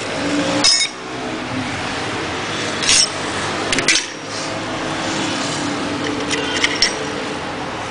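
Steady whirring background noise with a faint low hum, broken by a few clusters of short, sharp clicks and clinks of small hard objects being handled.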